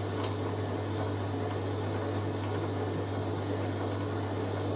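Hoover A3060 Electronic 1100 washing machine running with a steady hum as it spins the water out of a wet load of bedding. A short click sounds just after the start.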